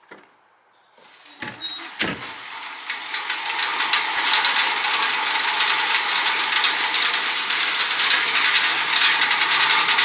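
A machine starting up about a second in with a couple of knocks, then running with a fast, steady ratcheting clatter that grows louder over the next few seconds and then holds even.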